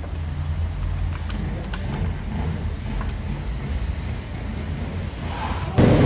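Steady low workshop hum with a few light clicks of a plastic motorcycle front mudguard being handled and fitted. Near the end it cuts suddenly to a much louder, rougher sound.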